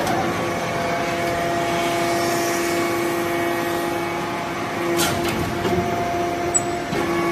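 Industrial scrap-metal briquetting machine running with a steady hum, with a sharp knock about five seconds in.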